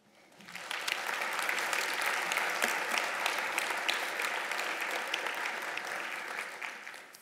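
Audience applauding, swelling within the first second, holding steady, then dying away near the end.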